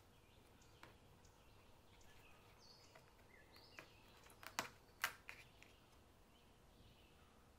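Near silence broken by a handful of sharp, light clicks and taps past the middle, as a thin wafer sheet is set by hand into a stainless-steel cake frame.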